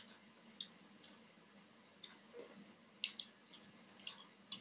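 Eating by hand: faint, short wet clicks and smacks, about eight spread unevenly, as fingers wipe the last gravy from a steel plate and go to the mouth.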